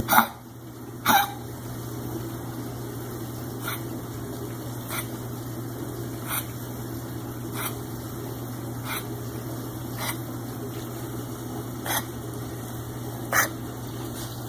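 Dog coughing: two sharp, strong coughs at the start, then a run of shorter, hiccup-like hacks about every second and a half, over a steady low hum.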